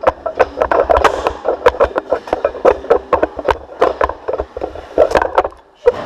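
Sorinex Root Hog push-pull sled being driven across a gym floor: a continuous, irregular rattling and clattering of the sled scraping and knocking as it moves, with a low rumble beneath. The noise drops away briefly near the end as the sled stops.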